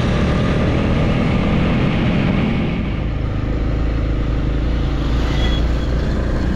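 Motor vehicle engine running steadily under road and wind noise; the sound turns lower and deeper about three seconds in.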